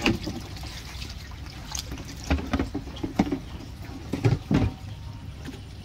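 Large black plastic lid being set onto a round plastic nutrient tank: a click as it lands, then several hollow plastic knocks and clunks as it is pressed and seated.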